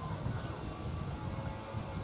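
Wind gusting across the microphone: an uneven low rumble that swells and dips.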